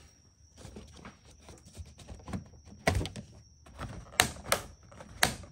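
Plastic air intake ducts on a Mercedes M157 V8 being unclipped and pulled off: a run of light clicks and knocks, the sharpest about three seconds in, then three more sharp ones toward the end.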